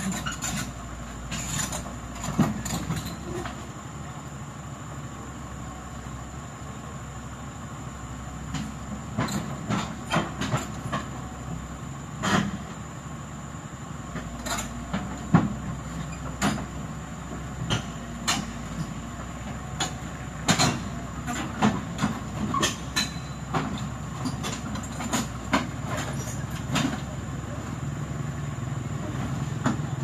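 Heavy diesel earth-moving machinery running steadily, with many irregular sharp metallic clanks and knocks; the engine note grows louder and steadier near the end.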